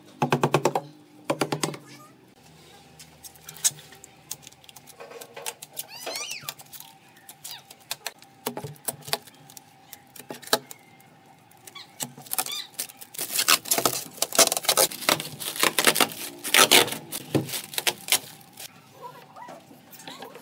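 Protective plastic film crackling as it is peeled off a laminate panel, with scattered clicks and knocks of handling. The crackling is loudest and densest in the second half.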